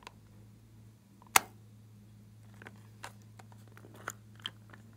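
Hard plastic clicks and taps from handling puzzle-piece-shaped plastic clay tubs as the lids are worked open. There is one sharp, loud click about a second in, then lighter scattered clicks and taps.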